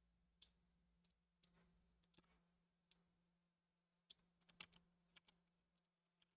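Near silence broken by about a dozen faint, scattered clicks of a computer mouse's buttons and scroll wheel and a keyboard's keys, over a faint steady low hum.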